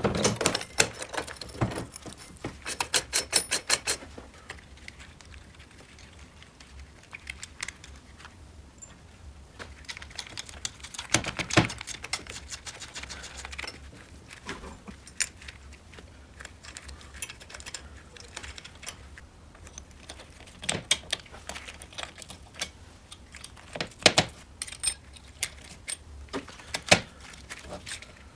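Metal parts of a moped engine's clutch clinking and clicking as they are handled and fitted: clutch plates, basket and pressure plate set onto the shaft in the engine casing. The clicks come in scattered clusters, the loudest at the very start and about 24 seconds in.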